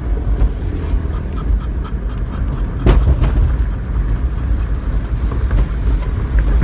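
Steady low rumble of road and engine noise inside a moving car, with a brief knock about three seconds in.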